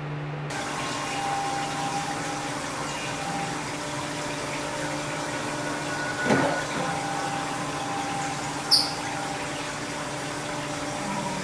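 Water running steadily in a darkroom print-wash sink, a smooth even rush. About six seconds in there is a single bump, and a short high squeak comes a little before nine seconds.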